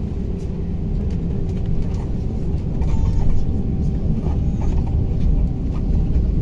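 Cabin of a KamAZ-6282 electric bus on the move: a continuous low road and tyre rumble with a steady hum from the drive, and light scattered rattles and clicks.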